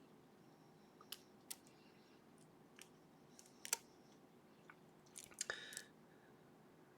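Lock pick and tension wrench working the pins of a sleeved Ruko lock: a handful of small sharp metal clicks, the loudest about halfway through, then a brief scratchy rattle of picking strokes near the end.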